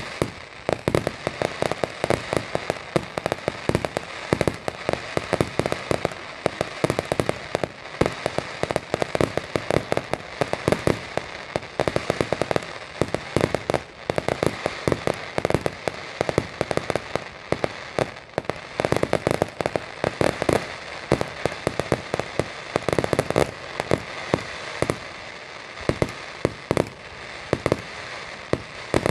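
Fireworks display: a dense, continuous barrage of crackling bursts and bangs, many per second, with a few louder detonations standing out.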